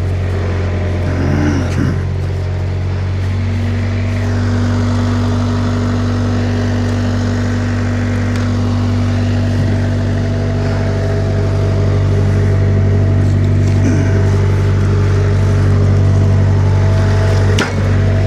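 Skid steer engine running steadily: a constant low drone, a little louder in the second half, with a short click near the end.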